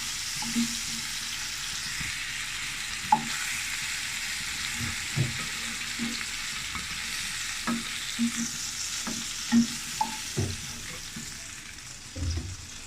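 Cornflour-battered prawns sizzling in hot oil, with short clicks and knocks of a utensil against the pan as the fried prawns are lifted out. The sizzling eases slightly near the end.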